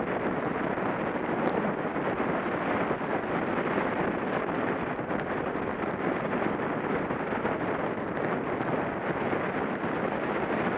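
Steady rush of wind over the microphone of a camera on a track bike ridden at about 30 mph, mixed with tyre noise on the wooden velodrome boards.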